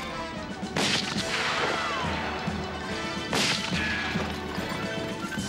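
Two gunshots about two and a half seconds apart, the first followed by a falling ricochet whine.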